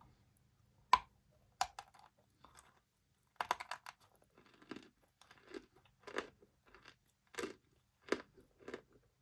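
Dry chalk bitten with a sharp snap about a second in, then chewed with crunchy, close-miked chews at a steady pace of about one and a half a second.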